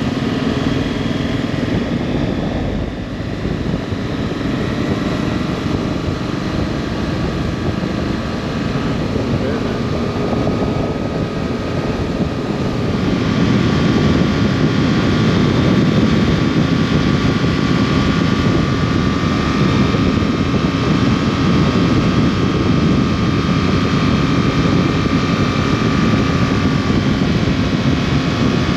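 Motorcycle engine running on the road, mixed with wind rush on the microphone. It gets louder about halfway through and stays up.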